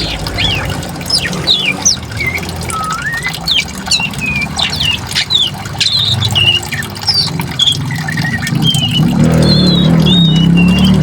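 Birds chirping and whistling in quick, short sweeping notes, over a steady low rush of flowing water that grows louder near the end.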